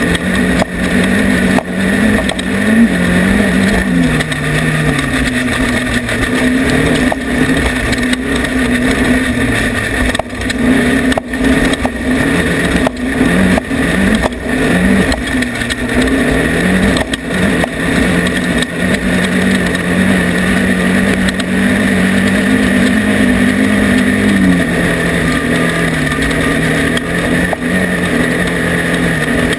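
Off-road race vehicle's engine running hard, its pitch rising and falling repeatedly as the throttle changes, then holding a steady note for several seconds before dropping near the end, with frequent short knocks throughout.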